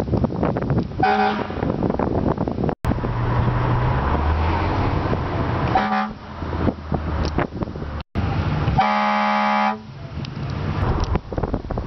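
Air horns sounding: a short toot about a second in, another about six seconds in, and a louder blast of about a second near the end, a chord of several tones. Vehicle road and engine noise runs between the blasts.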